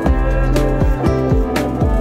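Background instrumental music with plucked notes and a regular beat.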